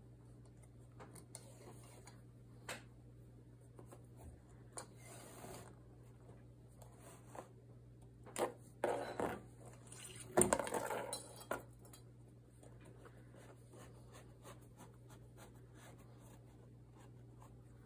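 Cotton potholder loops rustling and scraping as a weaving needle is drawn through the warp on a potholder loom and the rows are packed down by hand, with light clicks throughout. The handling gets busier about eight to eleven seconds in, with the loudest knock about ten seconds in, over a faint steady hum.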